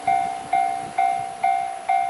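Japanese level-crossing warning bell ringing, one clanging tone struck about five times, a little over twice a second, each stroke decaying before the next.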